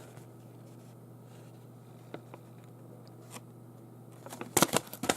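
A low steady hum with a few faint taps. Near the end comes a quick cluster of sharp rustles and clicks as packaging and paper are handled.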